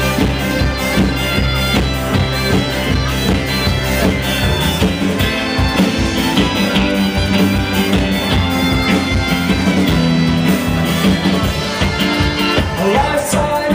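Live band playing music with accordion, fiddle, upright bass, guitar and drums, on a steady beat.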